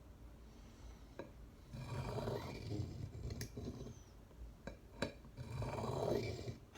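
Swiss Army knife blade drawn across a sharpener in two slow scraping strokes, one about two seconds in and one near the end, with a few light clicks between. The strokes refine a burr already raised on both sides of the edge.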